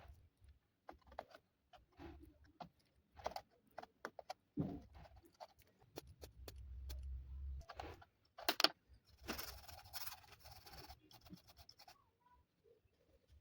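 Small metal tools and phone parts handled at close range during a charging-port repair: scattered light clicks and taps with a few scrapes. A low hum runs for a second or two in the middle, and a hissy scraping lasts about two seconds, starting about nine seconds in.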